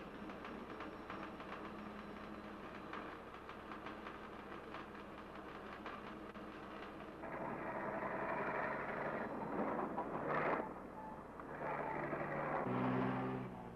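Heavy machinery running: a steady mechanical clatter, then from about seven seconds in a louder diesel engine working in surges, strongest near the end.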